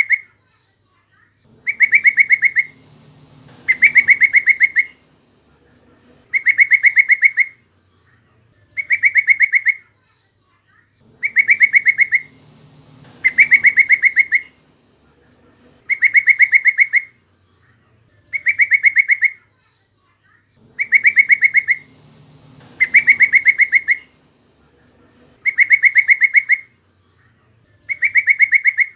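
Yellow-vented bulbul (trucukan) call played as a lure: about a dozen near-identical bursts of fast, chattering notes, each burst about a second long, repeating every two to three seconds.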